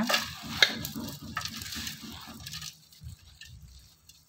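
A hand mixing chopped shallots, curry leaves and coarsely ground urad dal with spices in a steel bowl: irregular crackles and rustles that die down about three seconds in.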